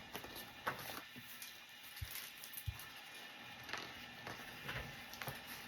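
Faint scattered clicks and soft rustles over quiet room tone.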